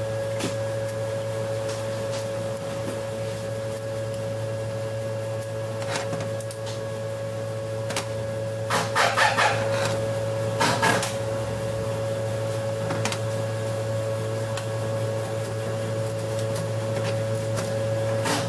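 Light metal clinks and taps as parts of an A6GF1 automatic transmission valve body are lifted and set down on a steel bench, coming in two quick bunches around the middle and once more near the end, over a steady machine hum.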